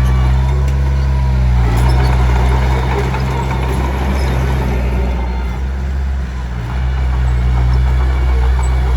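Komatsu D21P bulldozer's diesel engine running steadily. Its pitch drops briefly about two seconds in, and a rough, gritty noise rides over it for a few seconds, typical of the blade pushing stone.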